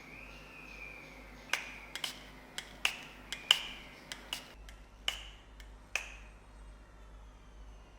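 Sharp, light metallic clicks and taps, about ten of them at irregular spacing over some four seconds, each with a brief ring: small steel parts of a toy truck being handled and knocked during restoration work.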